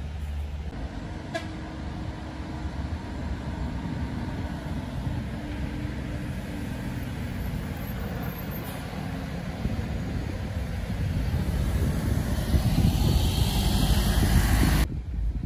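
Intercity coach engine running as the coach approaches round a bend and passes close, growing louder towards the end before cutting off suddenly.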